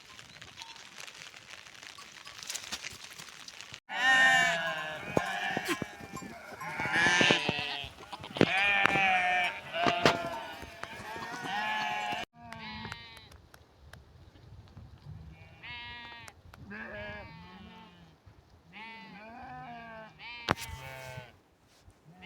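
A flock of sheep bleating, many wavering calls overlapping, starting abruptly about four seconds in after a steady hiss. The calls are loudest in the first half and quieter after a sudden cut at about twelve seconds, with a sharp click near the end.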